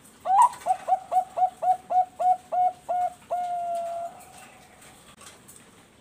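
Bangkok-strain zebra dove (perkutut) singing one song phrase: a string of about eleven short, clear coos at roughly four a second, ending in one longer held coo that fades out a little past the middle.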